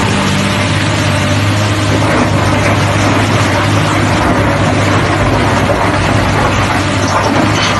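Heavy machine's engine running steadily: a low, even hum under a loud wash of noise.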